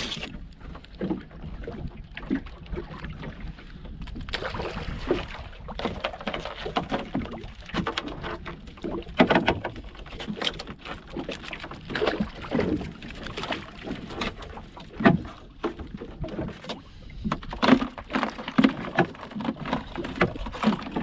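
Irregular knocks and rattles of a wire-framed mesh crab pot being handled on a small boat's deck, over a steady low rumble.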